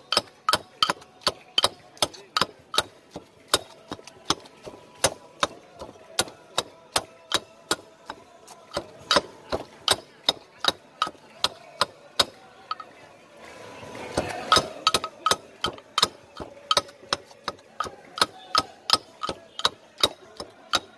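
A stone pestle pounding green banana mash in a stone mortar, with sharp, even knocks about two or three a second. The pounding pauses briefly about two thirds of the way through, then resumes.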